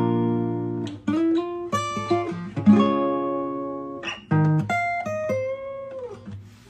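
Steel-string acoustic guitar playing a short tune: a strummed chord rings out, then a run of single notes and chords, closing on a note that slides down in pitch near the end.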